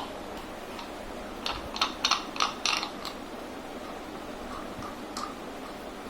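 A quick run of sharp light taps and clicks, some ringing briefly like metal on metal, followed by a few fainter ones, as tools and fan bearing parts are handled.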